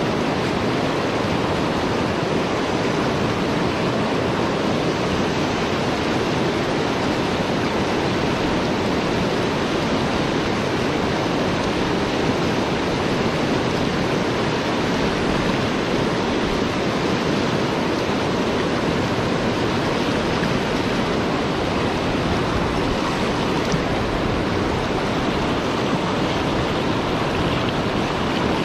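Fast, shallow river riffle rushing over rocks: a steady, unbroken rush of whitewater.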